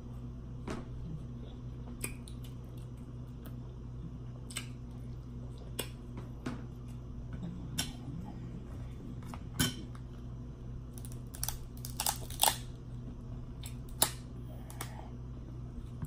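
Scattered sharp clicks and taps of king crab leg shells and metal shears knocking against a plate as the crab legs are handled and pulled apart, over a steady low hum. The clicks come more often in the second half.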